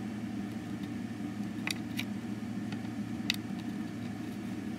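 A few sharp clicks of flathead screwdrivers shifting and prying against a Dyson DC25 cyclone assembly as it is worked loose, over a steady low hum.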